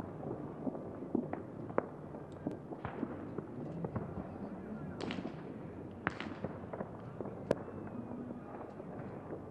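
Fireworks going off: irregular pops and sharp cracks, with two louder bangs about five and six seconds in, each trailing off, and another sharp crack a little later.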